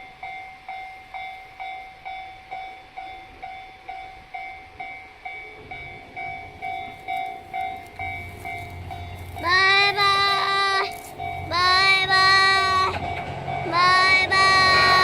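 Level-crossing alarm bell ringing its electronic ding about twice a second, while a diesel train's low rumble builds from about halfway through as it nears the crossing. In the last third, three long, steady high-pitched tones sound over it, each lasting a little over a second.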